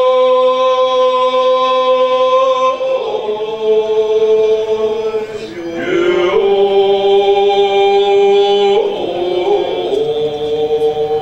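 A voice chanting a prayer in long held notes, moving to a new pitch every few seconds with a brief glide between some of them.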